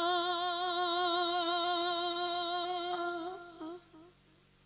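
A man singing one long held note with a steady vibrato, the drawn-out end of a word in a naat recited in tarannum. The note breaks off about three and a half seconds in and trails away.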